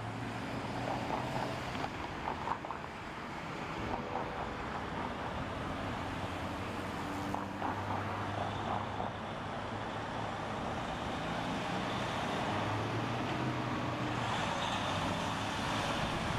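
Tractor-trailer semi truck driving slowly through a roundabout among passing cars, its diesel engine note stepping up and down over steady road noise. It grows a little louder near the end as the truck passes close.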